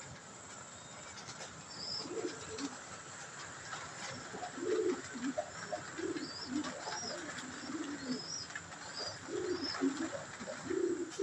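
Domestic pigeons cooing: low rolling coos repeating in clusters throughout, with faint short high chirps over them.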